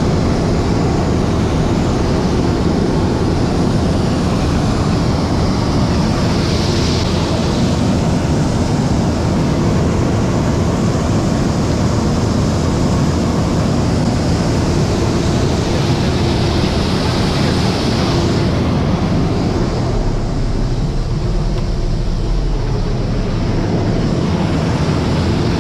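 Grain crimper (roller mill) driven by a Massey Ferguson 6499 tractor, running loud and steady while crimping wheat; the low rumble gets heavier about twenty seconds in.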